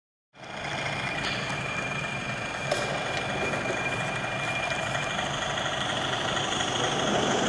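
H0-scale model of a Swedish Y6 railbus running on a model railway, its sound decoder playing diesel railbus engine sound with the model's own running noise, cutting in abruptly just after the start. A thin steady high whine sits over it until about five seconds in.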